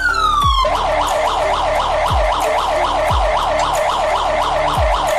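Fire-service emergency siren: a falling wail for about the first half-second, then switching to a fast up-and-down yelp of about four cycles a second.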